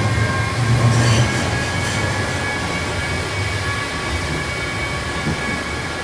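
Ganz-Mávag M1 metro car running through the tunnel, heard from inside the passenger cabin. There is a steady low rumble of wheels and running gear with a faint steady whine, and a short burst of rattle about a second in.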